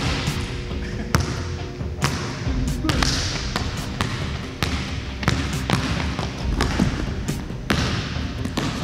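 A basketball bouncing on a court during play, with sharp irregular thuds rather than a steady dribble. Voices and background music run underneath.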